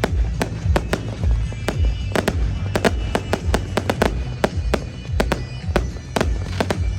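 Fireworks going off in quick, irregular succession, a few sharp bangs and cracks each second, over music with a heavy low bass.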